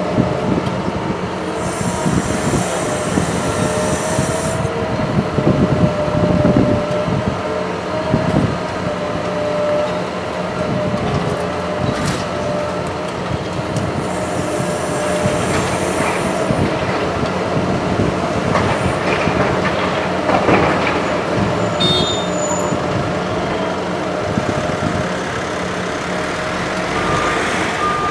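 Liebherr R 944 C demolition excavator's diesel engine and hydraulics working under load, with a steady whine and heavy clattering of rubble about five to eight seconds in. Two spells of high hiss of a few seconds each, the first about two seconds in and the second about fifteen seconds in.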